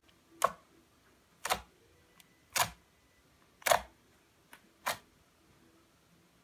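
Fingertips poking into thick, chewy chocolate slime, each poke giving a sharp pop; five loud pops about a second apart, with a faint one or two between.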